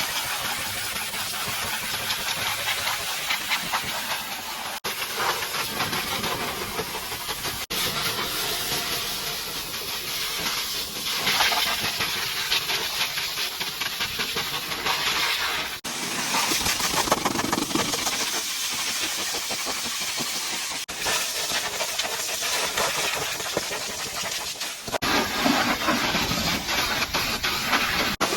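High-pressure washer jet spraying water against a truck's body to blast off caked mud: a loud, steady hiss that changes abruptly several times.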